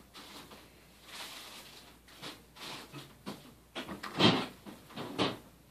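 The Cat's Meow toy's yellow fabric cover rustling and scraping as its battery-driven wand moves underneath and a cat paws at it. The sounds come in irregular bursts, the loudest about four and five seconds in.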